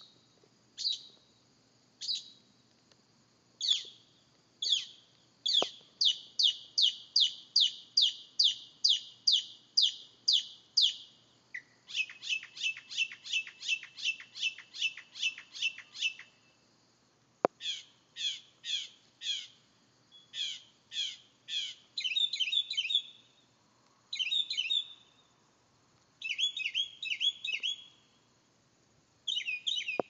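Northern mockingbird singing at night, running through a string of different phrases and repeating each several times before switching. First come separate single notes, then a fast series of about three notes a second, then one of about four a second, then short warbled phrases repeated in small groups.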